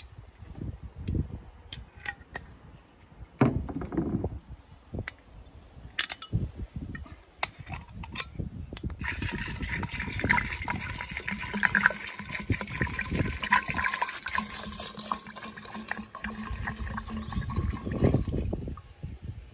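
Shochu pouring from a glass bottle into a glass jar of ume plums, the stream splashing onto the fruit and the liquid as the jar fills. The pour is uneven at first and becomes fuller and steadier about halfway through.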